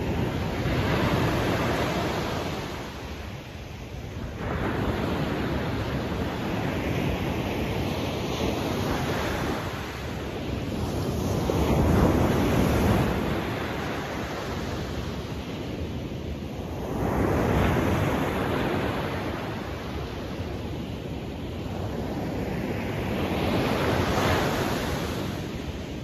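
Ocean waves breaking on a beach: a continuous surf wash that swells and fades about every five seconds, each wave building to a peak and then receding.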